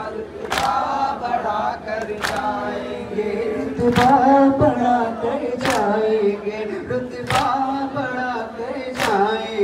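Men's voices chanting a nauha, a Shia mourning lament, with sharp slaps of unison chest-beating (matam) keeping the beat, six strokes about every 1.7 seconds.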